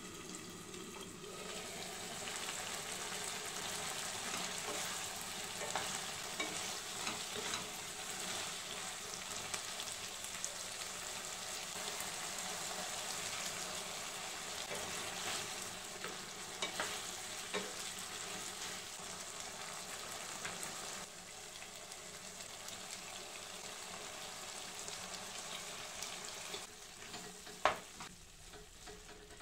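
Vegetables sizzling and bubbling in a cooking pan, with a spoon stirring and clicking against the pan now and then; one sharp clink near the end.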